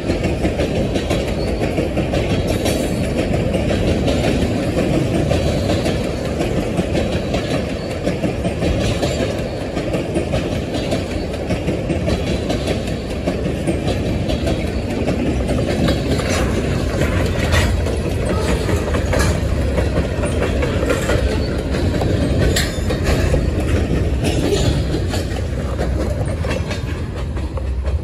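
A freight train's cars, mostly tank cars, rolling past close by with a steady rumble. Sharp wheel clicks over the rail joints come more often in the second half.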